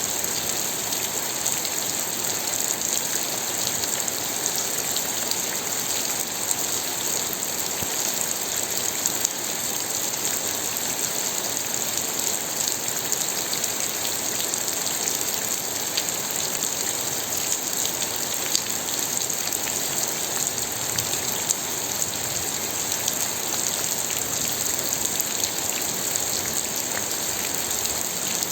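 Steady rain falling, a dense even hiss with many fine drop ticks.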